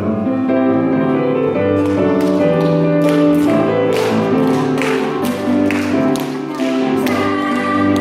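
Instrumental introduction of a children's praise song, keyboard-led melody and chords, with a steady tapping beat of about two strokes a second coming in about two seconds in.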